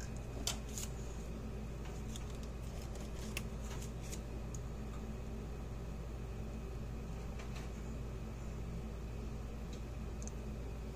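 Steady low hum, with a few light clicks and ticks from handling a wire and small tools, most of them in the first few seconds.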